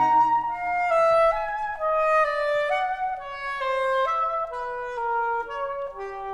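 Saxophone quartet playing a classical chamber piece. The low notes drop out at the start, leaving two or three upper voices in held notes that change about twice a second and step gradually downward.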